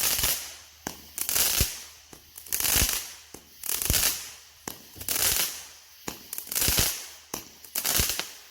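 Red Apple Fireworks Lazer Catz 49-shot firework cake firing shot after shot, about six in all, one every second and a half or so. Each is a sharp launch thump followed by a short, high hissing burst.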